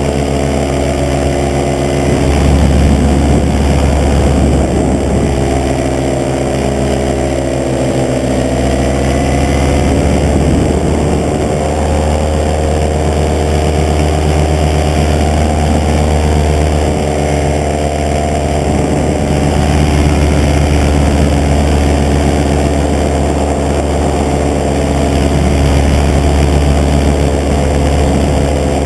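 Paramotor engine and propeller running steadily in flight, a loud drone heard close up from the pilot's harness. The pitch wavers and shifts a few seconds in, around eight to ten seconds, then holds steady again.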